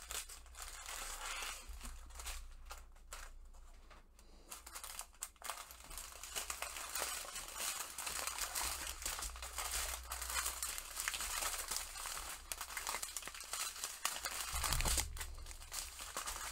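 Strips of small clear plastic bags of diamond-painting drills crinkling and rustling as they are handled and spread out, with a quieter stretch around four seconds in and busier crinkling after that.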